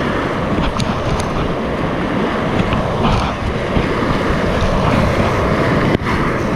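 Whitewater rapid rushing loudly around a kayak running down it, with spray splashing against the camera and a few short sharp splashes, and a brief dip in the sound about six seconds in.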